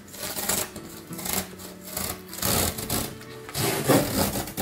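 A cardboard shipping box being unsealed by hand: packing tape ripped off the cardboard in several pulls, with cardboard rubbing, the loudest pull about four seconds in.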